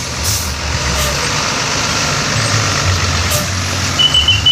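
Diesel tour buses running with a low, steady engine rumble as they move past in a convoy, with brief hisses of air brakes. About four seconds in, a few short high-pitched beeps.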